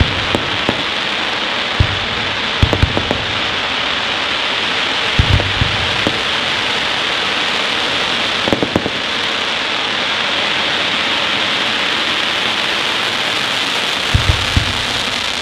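Aerial fireworks: a dense, steady crackle from crackling effects fills the air, with a handful of deep thuds from shells going off scattered through it.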